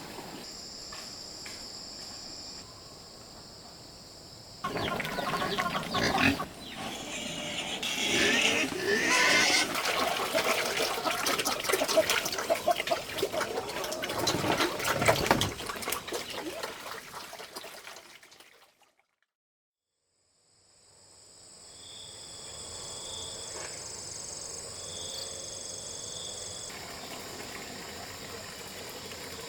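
Pigs vocalizing loudly and irregularly for over ten seconds, then fading out. Insects keep up a steady, high-pitched buzz with repeated pulsing notes.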